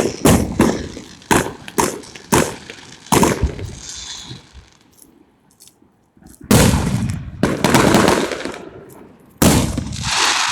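A bell ringing loud and harsh: a series of separate strikes about every half second, then, after a short lull, a long continuous burst of rapid ringing, and another beginning near the end.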